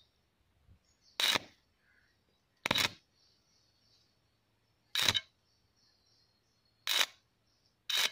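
Five short crackling bursts, a second or two apart, each about a quarter second long: a homemade salt-water welding rig's electrode touched to the earthed steel rod and arcing briefly.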